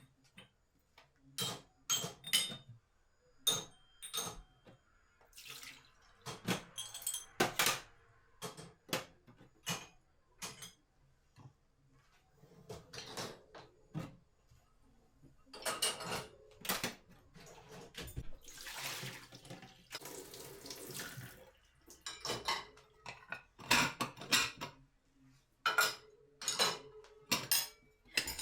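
Dishes and utensils knocking and clinking at a kitchen sink, with the tap running for about three seconds a little past the middle.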